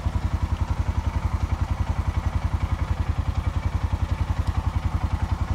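Engine of an Arctic Cat side-by-side utility vehicle running at a steady speed, a deep, fast, even pulsing that does not rise or fall.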